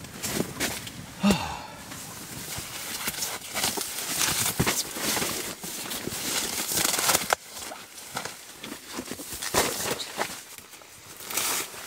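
Rustling and crinkling of a foam sleeping pad and camping gear being handled and laid out in a tarp-walled tent, with many small knocks and clicks throughout. A brief sigh about a second in.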